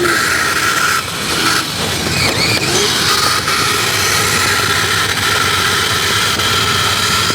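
Electric motor of a radio-controlled vehicle running with a steady high whine, breaking off briefly about a second in as the throttle changes.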